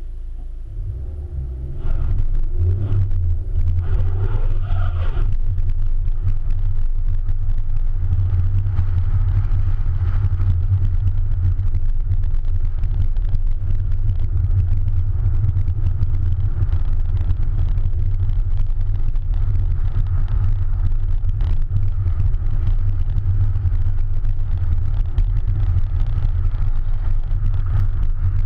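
Peugeot 308 1.6 HDi diesel car driving on a snowy track, heard from outside the car by the door mirror: a heavy steady low rumble of tyres and wind. The rumble gets louder about two seconds in, and the engine rises in pitch as it accelerates for the next few seconds.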